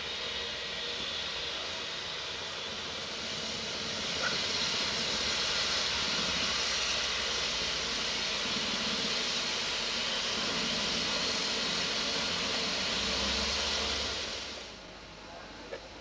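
BR Standard Class 9F steam locomotive 92203 hissing steadily with escaping steam, the hiss growing louder about four seconds in. It cuts off abruptly near the end.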